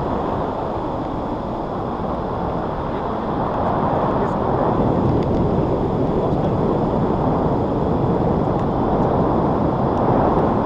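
Steady wind rushing and buffeting over the action camera's microphone as the tandem paraglider flies through the air.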